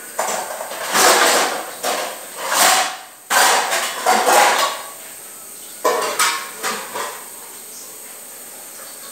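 Kitchen clatter of pots and utensils being handled: a run of loud knocks and scrapes over the first seven seconds or so, then only a faint steady hiss.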